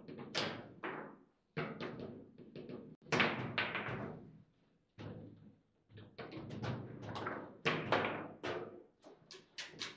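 Table football (foosball) match in play: about a dozen sharp, irregular knocks and bangs as the ball, the plastic players and the rods strike the table, each ringing briefly through the table's body.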